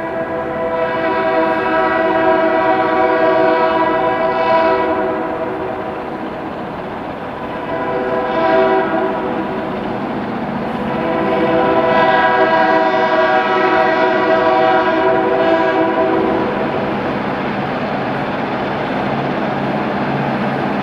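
Diesel freight locomotive's air horn sounding three blasts, long, short, then long, as the train approaches, over the steady rumble of the train.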